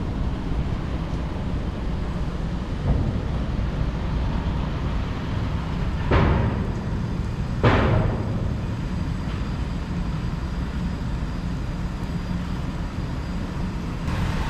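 Steady low drone of a car ferry's engines, with two brief rushes of noise about six and seven and a half seconds in.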